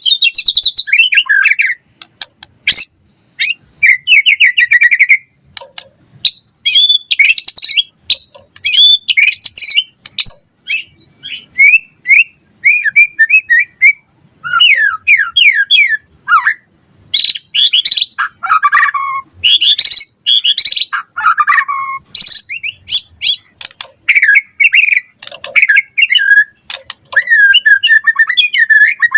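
White-rumped shama (murai batu) singing in full voice: a fast, varied run of whistles, trills, rattles and mimicked chirps in short phrases with brief pauses.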